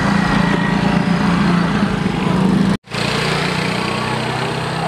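A small engine running steadily with a low, even hum, broken by a momentary dropout about three seconds in, after which it carries on at a slightly lower pitch.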